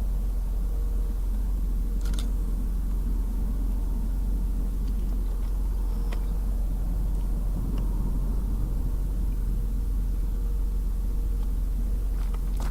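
A car driving: steady low road and engine rumble, with a faint steady hum and a few faint ticks.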